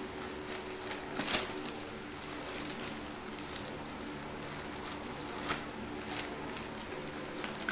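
Plastic courier mailer bag crinkling and rustling as small hands pull and fold it, with a few sharper crackles, about a second in and twice near the end.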